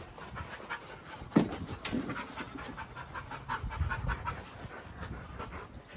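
Dogs panting close up, a quick, even rhythm of breaths, with one louder sudden sound about a second and a half in.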